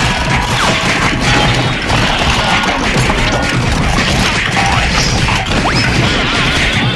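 A fight sound effect: a dense, nonstop jumble of hits, smacks and crashes, with music and a few short sliding tones laid over it.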